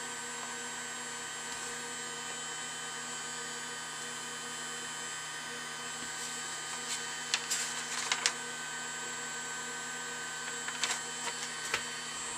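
Mini handheld hot air gun running near its top temperature: a steady fan whirr and hiss with a few faint whining tones. Short paper crackles and handling clicks come twice, around seven to eight seconds in and again near eleven seconds.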